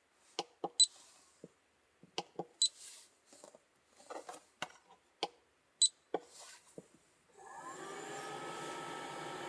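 A series of handling clicks and knocks, a few with a bright metallic clink, then about seven seconds in a small motor starts and runs steadily with a hum and a slightly rising whine.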